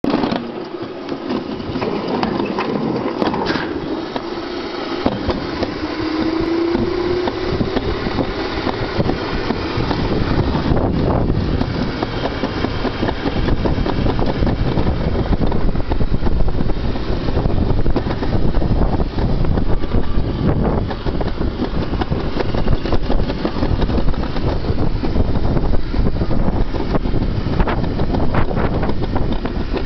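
Summer toboggan sled running down a stainless-steel trough track: a steady rushing rumble that gets louder and deeper as the sled picks up speed, with wind buffeting the microphone.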